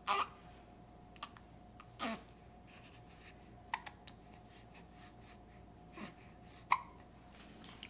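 Baby hiccupping: about six short, sharp hiccups at irregular gaps of one to two seconds, the first the loudest.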